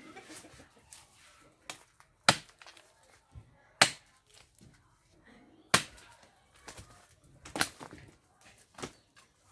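Chopping strikes on wood: four loud, sharp blows spaced about one and a half to two seconds apart, with a few lighter knocks between them.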